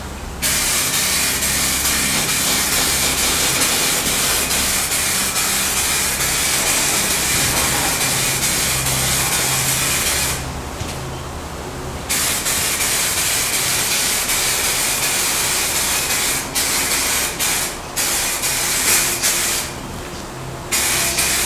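Normfest 2K aerosol clear-coat can spraying in a steady hiss for about ten seconds, stopping for a couple of seconds, then spraying again in shorter, broken bursts with another short pause near the end. This is the first coat of clear being laid on.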